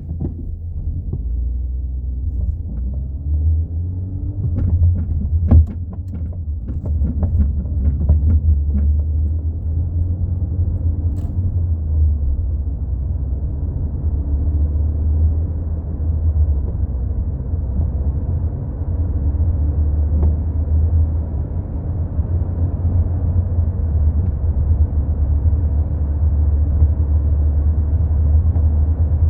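Low, steady rumble of a MK4 Volkswagen Golf being driven, with a run of sharp knocks and rattles from about four to nine seconds in: the clunking of a bad rear shock absorber.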